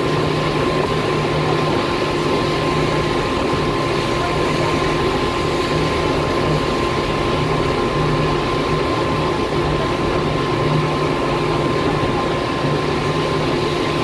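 Boat engine running steadily under way: a constant hum with a thin high whine, over the rush of wind and water.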